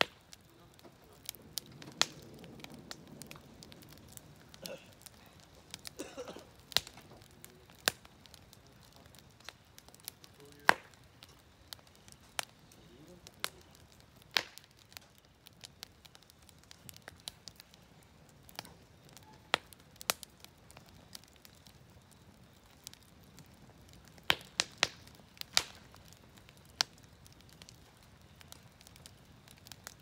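Wood campfire burning in a fire pit, crackling with irregular sharp pops and snaps, a quick cluster of louder pops near the end.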